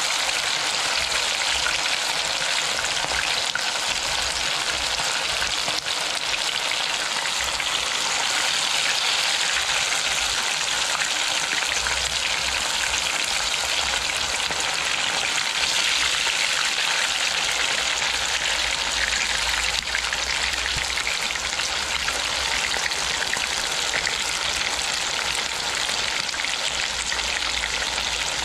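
Chicken pieces frying in hot oil: a steady, unbroken sizzle.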